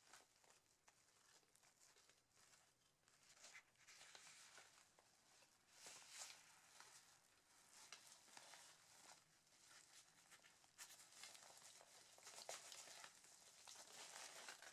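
Faint rustling and scuffing of a nylon waist pack's fabric as hands slide a smartphone into its pocket and squeeze and turn the bag, with a few small clicks.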